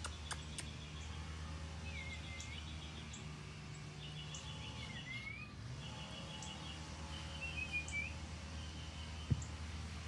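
Birds calling: a few short chirps that dip and then rise in pitch, over repeated high rapid trills and a steady low hum. A brief low thump comes near the end.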